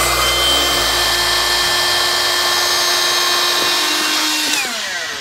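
Handheld electric air pump running with a steady whine, inflating a car-camping air mattress. About four and a half seconds in it is switched off and winds down with a falling pitch.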